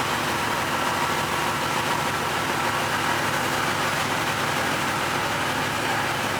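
Passenger ferry's engine running steadily, an even, unchanging noise with a few faint steady tones in it.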